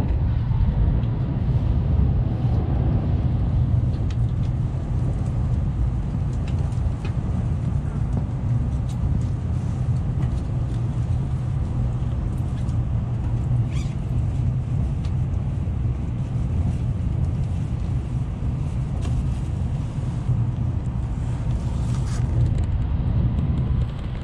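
Steady low rumble of a Shinkansen bullet train running at speed, heard from inside the passenger cabin, with a few faint clicks.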